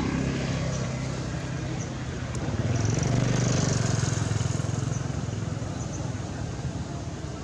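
A motor engine running steadily, growing louder about two and a half seconds in and easing off again toward the end.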